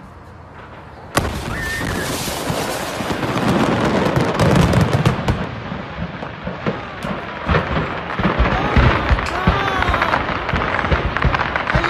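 A stockpile of commercial-grade fireworks exploding: a sudden loud blast about a second in, then a continuous barrage of crackling and booming detonations.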